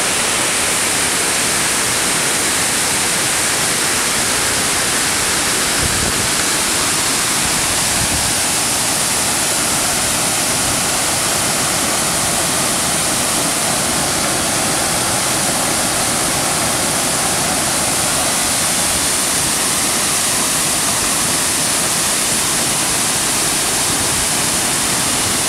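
Dainthlen Falls, a waterfall pouring over rock ledges, making a loud, steady rush of falling water that does not change.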